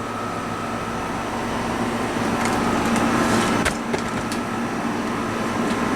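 Steady hum and airflow of a running window air conditioner, with a sharp click about two-thirds of the way through.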